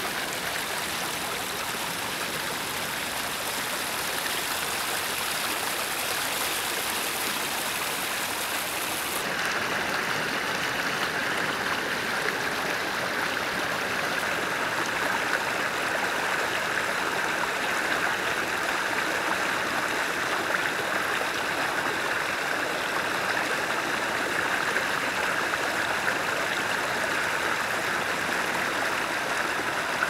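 Shallow water running over rocks, a steady rushing hiss. About nine seconds in it changes tone, losing its highest hiss and turning a little fuller.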